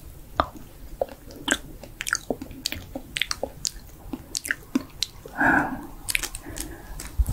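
Close-miked ASMR mouth sounds: quick wet clicks, smacks and chewing noises made while miming eating, with a short louder breathy sound about five and a half seconds in.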